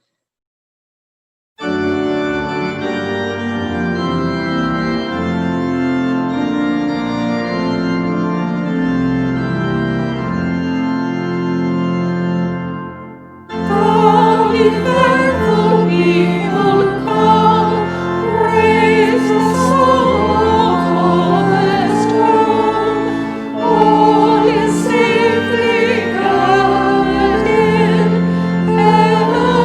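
Organ playing sustained chords after a second and a half of silence; about twelve seconds later voices begin singing over the organ.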